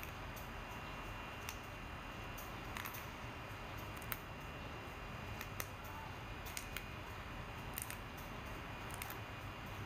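Crisp fresh green vegetable stems snapped by hand into short pieces: a dozen or so sharp little snaps at irregular intervals.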